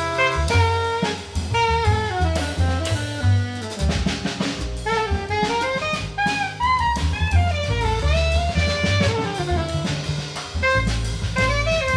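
Jazz ensemble playing: an alto saxophone carries a flowing melodic line that slides between notes, over double bass and a drum kit with cymbals.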